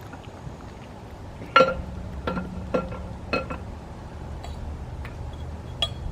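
Metal parts or tools clinking against each other: four sharp, ringing clinks between about one and a half and three and a half seconds in, then a couple of lighter ticks. These are the metal pieces of a 5.3 LS V8 being taken apart.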